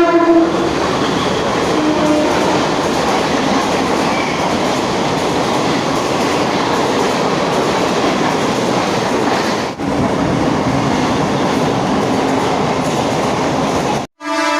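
Mumbai suburban local electric train running, a loud steady rumble and rattle of wheels on track. A horn sounds briefly at the very start.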